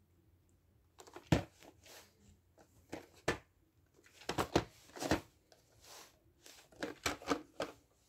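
A VHS tape and its plastic case being handled: a string of short clicks, taps and rustles.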